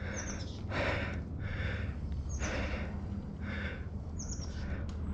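A person breathing hard after riding, one noisy breath about every second, over a steady low rumble.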